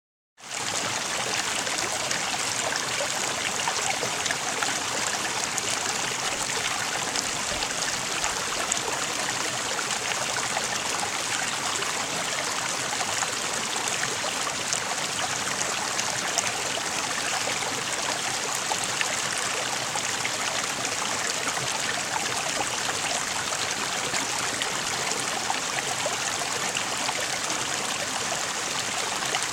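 Flowing stream water running steadily, an even rush with fine trickling.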